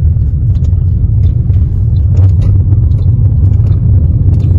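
Loud, steady low rumble inside a moving car: road noise and wind buffeting the phone's microphone.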